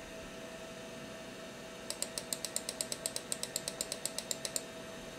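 Rapid, even clicking of a mouse button on a scroll arrow, about twenty clicks at seven or eight a second, starting about two seconds in and stopping shortly before the end. A Macintosh SE/30 hums steadily throughout.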